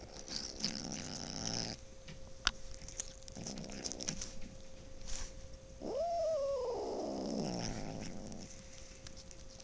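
Cat growling while eating chicken, guarding its food: low rumbling growls, then about six seconds in a long warning yowl that rises and slides slowly down.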